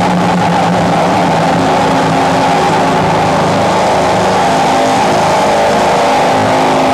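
Harsh noise music played live on electronic gear: a loud, unbroken wall of dense noise with steady droning tones inside it.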